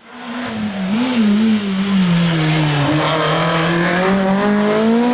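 Rally car engine fading in, its note dropping over the first couple of seconds, then climbing steadily as the car accelerates.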